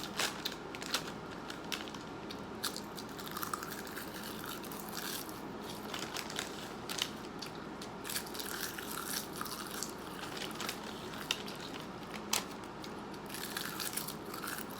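Close-miked chewing and mouth sounds of someone eating, with irregular small crunches and wet clicks.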